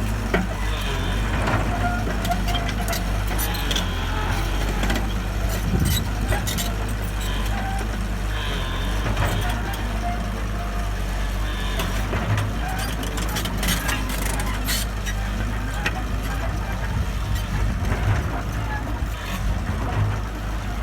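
Heavy machine's engine running steadily at a low hum, with scattered clicks and knocks over it.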